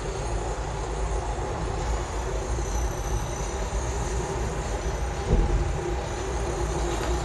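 Steady low rumble and hiss of running machinery with a faint hum, unchanging throughout.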